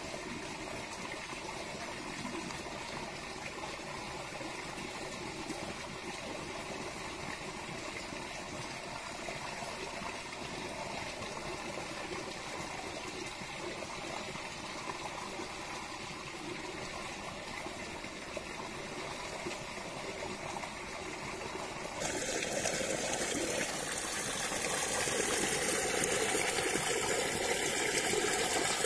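Steady rushing outdoor background noise with no distinct events. About 22 seconds in it jumps to a louder, hissier rush.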